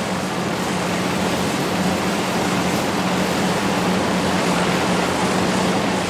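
Massey-Harris 21 self-propelled combine harvester at work: its Chrysler engine running steadily under the rush of the threshing machinery as it cuts wheat.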